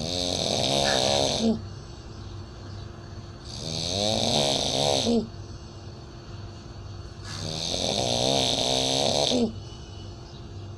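A sleeper snoring in an unusual way: three long snores about four seconds apart, each a wavering, pitched drone over a breathy hiss.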